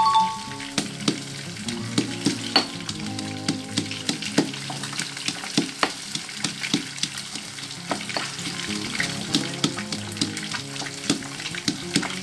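Stone pestle pounding chillies and garlic in a granite mortar: dull, irregular strikes about two a second, over background music. A short chime sounds at the very start.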